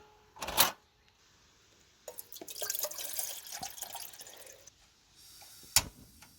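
Water splashing and dripping into a container for a couple of seconds, with pinging drops, between a short noisy burst near the start and a sharp click near the end.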